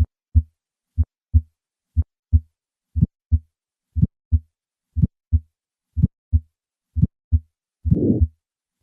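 Heart sounds through a stethoscope at about one beat a second, each a crisp first and second sound. An ejection click opens systole. From about eight seconds in, a systolic ejection murmur fills the gap between the sounds: the murmur of aortic stenosis, with the click placing the obstruction at the valve, typical of a bicuspid aortic valve.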